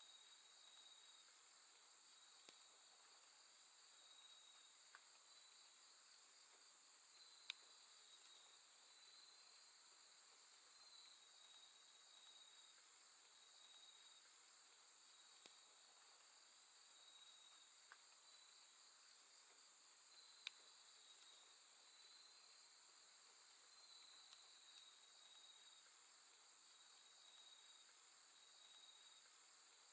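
Faint chorus of crickets and other grass insects chirping steadily on a late-summer night, with high continuous trills and softer pulsing calls above them. A few faint clicks now and then.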